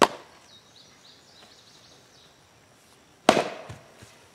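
A 3D-printed Super PLA+ axe head strikes a log once, about three seconds in, splitting it: one loud, sudden chop that fades over about half a second. A shorter knock comes right at the start, as a log is set on the chopping block.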